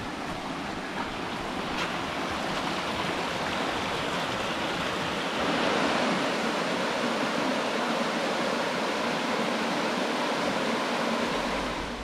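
Rushing water of a small waterfall cascading over rocks into a brook: a steady rush that gets louder about five seconds in.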